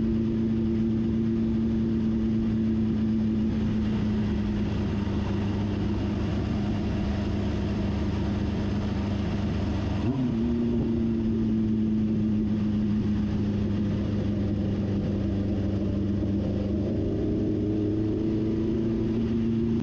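1973 Honda CB750's air-cooled inline-four engine running steadily under load on a climb. About halfway through there is a brief blip and the pitch settles a little lower, then it slowly climbs again near the end.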